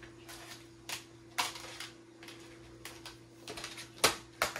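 Batteries being handled and snapped into a small plastic battery holder: a handful of irregular sharp clicks and rattles, the loudest about four seconds in.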